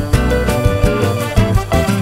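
Upbeat background music with a Latin, salsa-like feel and a steady beat.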